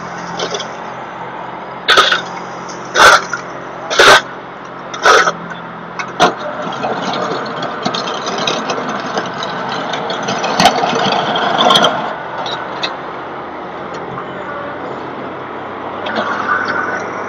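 A tractor's diesel engine running steadily under work, broken near the start by four loud, short, sharp noises about a second apart.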